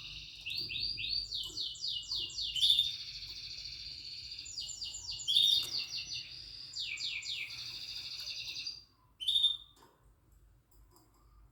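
Yellow mosaic canary singing a long, unbroken song of rapid trills and rolls. It stops sharply about nine seconds in and is followed by a single short chirp.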